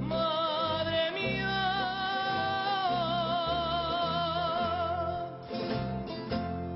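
A male voice sings a Canarian folk song in long, held notes with a wide vibrato, over acoustic guitar accompaniment. The voice steps down in pitch twice and stops about five seconds in, and the guitar plays on alone.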